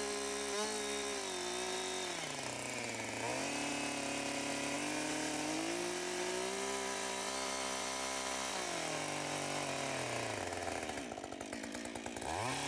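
Two-stroke chainsaw running at high revs while cutting into a log to form a notch. Its pitch dips and recovers several times. It drops lower about eleven seconds in, then revs back up near the end.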